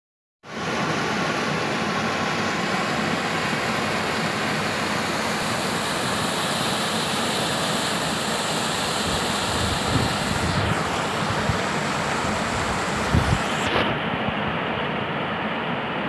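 Small rocky waterfall rushing steadily, a dense even hiss of cascading water, with a few low buffets of wind on the microphone around ten and thirteen seconds in. Near the end the sound turns suddenly duller.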